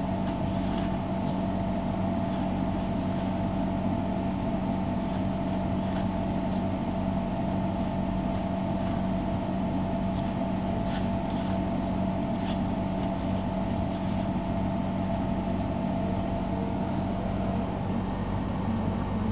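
A steady low machine hum at an even level, with a few faint light ticks around the middle.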